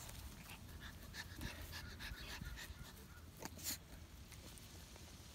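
Small dog panting faintly as it goes after a gopher in loose dirt, with scattered short scuffs and clicks from the scuffle.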